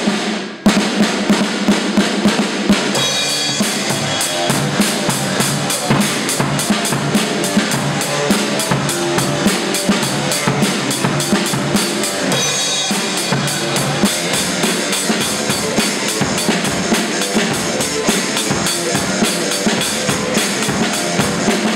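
Rock band playing loud: fast, dense drumming on a drum kit with hi-hat, snare and bass drum, over electric guitar.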